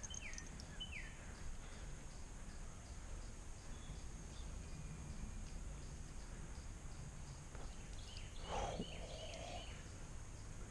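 Steady low outdoor background rush with a bird's short, downward-sliding call notes, a couple near the start and a quick run of them about eight to ten seconds in, where a louder, lower call also sounds.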